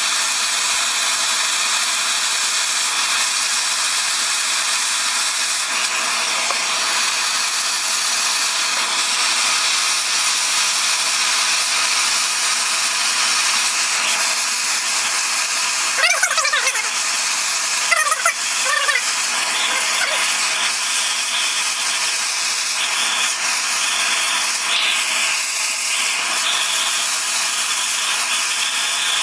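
MAP gas torch hissing steadily as it heats a steel digging bar to hold its tempering heat. Two short, louder sounds break in about halfway through, a couple of seconds apart.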